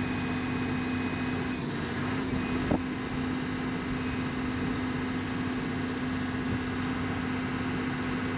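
An engine running at a steady idle, with one short knock about three seconds in.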